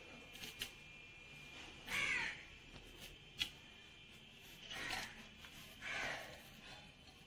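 A crow cawing three times: once about two seconds in, then twice more close together near the end, each caw short and harsh. Between the caws, a few faint clicks.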